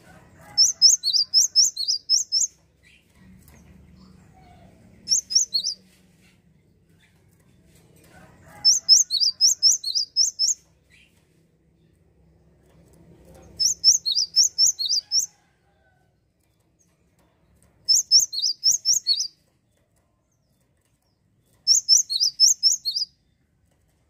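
Cinereous tit (gelatik wingko) singing: six bursts of quick, high, falling notes, each burst of about five to seven notes lasting a second or two, with pauses of a few seconds between.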